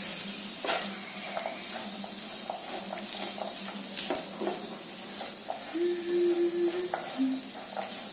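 Wooden spatula stirring and scraping a mixture of peas, mashed potato and spices around a sizzling frying pan, in repeated strokes over the steady hiss of frying masala. A short steady tone sounds about six seconds in, followed briefly by a lower one.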